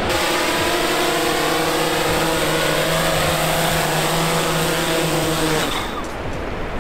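SwellPro SplashDrone 4 quadcopter's propellers and motors humming steadily as it comes down to land, the hum cutting off suddenly about five and a half seconds in as it touches down and the motors stop.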